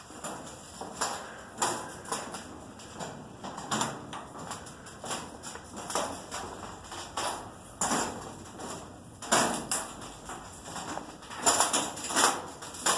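Footsteps on the steel grating deck of an autorack rail car: irregular metallic knocks about once a second, bunching more closely near the end.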